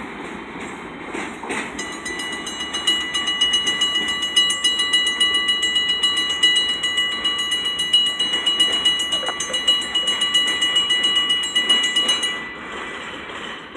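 Freight train cars rolling past, with a high metallic ringing squeal that pulses about five times a second, starts about two seconds in and cuts off suddenly near the end.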